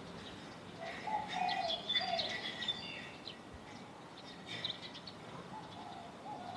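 Small birds chirping in short clusters, about a second in and again near five seconds, with a few lower rounded calls beneath the chirps over steady background noise.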